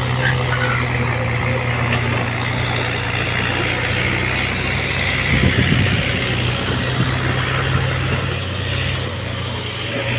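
Komatsu PC210 hydraulic excavator's diesel engine running steadily while it digs earth and rock, with a louder rumble about halfway through.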